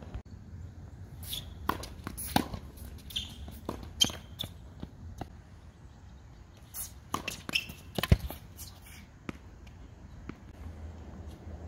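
Tennis rally on a hard court: a series of sharp racket-on-ball hits and ball bounces, with shoe scuffs on the court between them. The loudest is a hit a little after eight seconds in.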